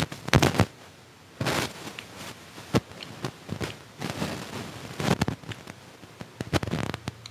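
Close-up chewing and crunching of fried street food, an irregular run of crackly bites and mouth noises.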